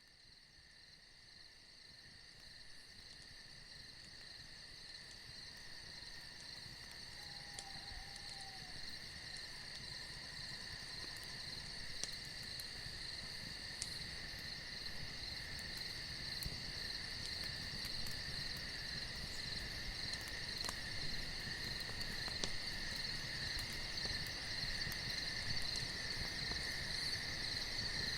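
A steady chorus of crickets trilling in continuous high-pitched bands, fading in gradually from near silence and growing louder, with a few faint scattered clicks.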